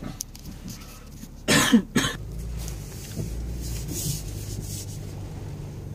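A person coughs twice in quick succession about a second and a half in, close to the microphone inside a car cabin. Under it the car runs with a steady low hum that rises a little after the coughs.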